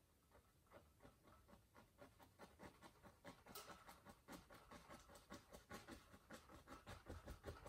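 Faint, quick dabs and strokes of an oil-loaded fan brush against a canvas, laying in pine branches. Soft scratchy taps come sparsely at first, then a few a second from about two seconds in.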